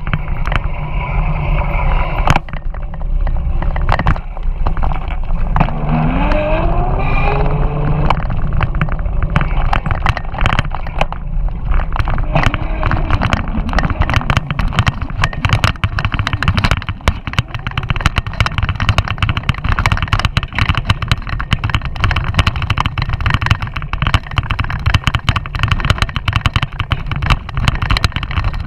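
An electric mountain bike ridden over a rough dirt trail: constant rattling knocks from the bike and a heavy rumble of wind on the microphone. About six seconds in, a whine rises steeply in pitch for a couple of seconds.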